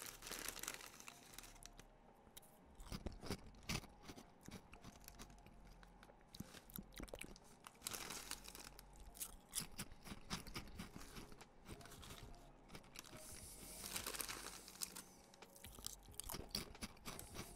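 Faint crinkling of a crisp packet and crunching of Walkers Prawn Cocktail crisps being chewed, in scattered short bursts.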